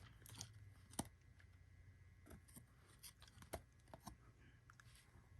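Near silence with a few faint, sharp clicks and soft ticks of trading cards being handled and slid from one to the next.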